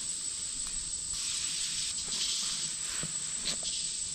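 Insects singing outdoors: a steady, even, high-pitched drone, with a hissing swell about a second in and a few faint ticks.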